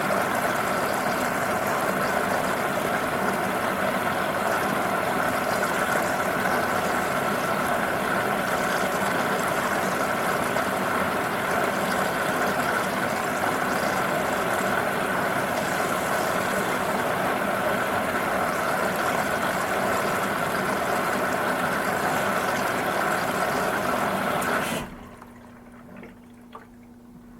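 Washing machine running with a steady rush of water, cutting off suddenly near the end and leaving a faint low hum.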